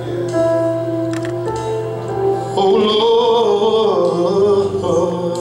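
Gospel worship song sung live by a small group of singers into microphones, with long held notes that waver from about halfway through.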